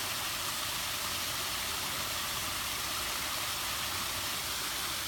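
Small waterfall spilling off a rock ledge into a pool: a steady, even rush of falling water.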